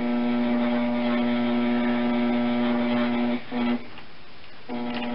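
Electric potter's wheel motor humming steadily. It drops out for a moment about three and a half seconds in, goes off for about a second, then comes back on.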